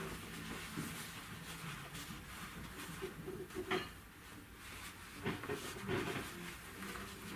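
Crushed-velvet upholstery fabric rustling as it is folded and tucked by hand into tufting pleats, with a few soft clicks and knocks in the second half.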